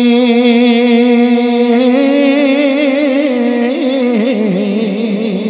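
A man singing a Punjabi naat without accompaniment, drawing out the end of a line in one long held note. About a second and a half in, the note breaks into a wavering, ornamented run that steps up a little, then slides down near the end.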